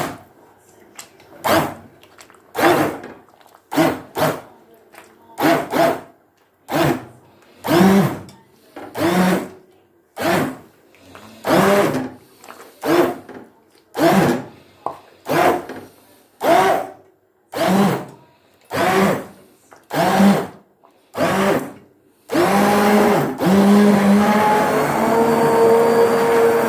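Electric blender pulsed in short bursts about once a second, each whirring up in pitch as the motor spins up, then run continuously for the last few seconds, blending a pot of soup only partly.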